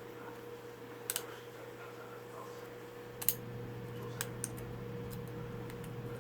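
A few scattered light clicks and taps of small lens parts being handled on a workbench, the loudest about three seconds in, over a steady background hum.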